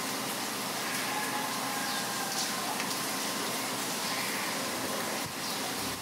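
Steady rain falling, with a few short, faint, high bird calls over it.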